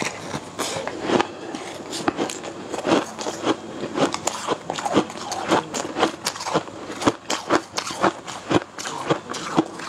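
Close-miked eating: wet chewing and mouth sounds of a large mouthful, with wooden chopsticks clicking and scraping against the bowl in many short, sharp ticks.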